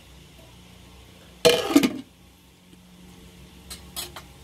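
An aluminium plate set down on top of an aluminium cooking pot with one loud metallic clatter about a second and a half in, then two lighter clinks near the end.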